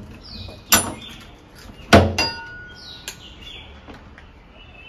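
Door lock and metal lever handle of a wooden door being worked and the door opened. There is a sharp click about three-quarters of a second in, then a louder metallic clack with a brief ring about two seconds in, followed by a lighter click. Faint bird chirps sound in the background.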